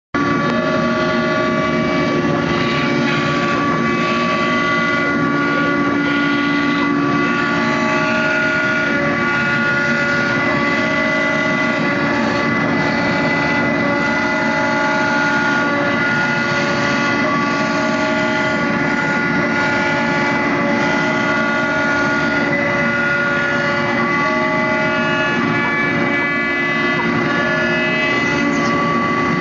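CNC router running while its spindle and end mill cut out clear thermoformed plastic trays: a steady machine whine made of several held tones, with a few other tones that switch on and off every second or two.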